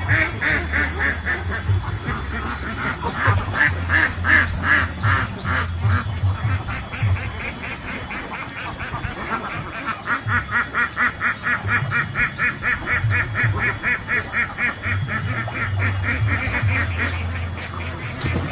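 A flock of white domestic ducks quacking in quick runs of short, repeated calls, about four or five a second, easing off for a few seconds in the middle before starting up again.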